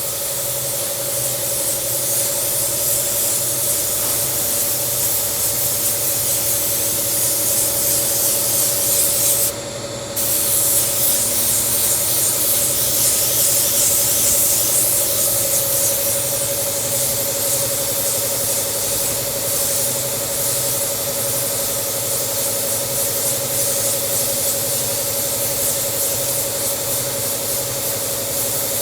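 Spray gun misting water-based leather coating onto a car seat: a steady hiss of atomised spray over the even hum of the gun's air supply. It cuts out briefly about ten seconds in and then resumes.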